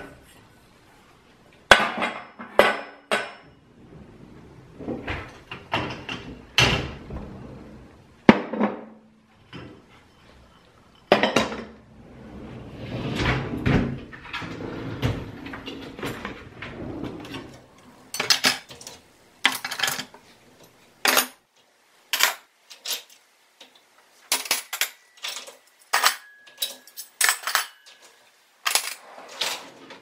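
Dishes, a stainless steel bowl and cutlery clinking and clattering as a dishwasher is unloaded, with a quick run of sharp clinks in the second half.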